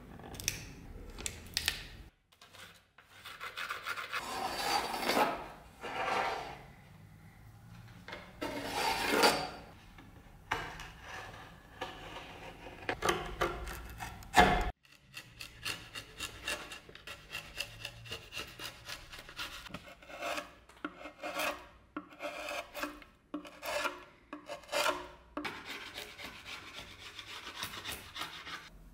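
A hand chisel scraping and cutting into wood. Long rasping strokes come in the first part. After a sudden break about halfway, a steady run of short cuts follows, about two a second.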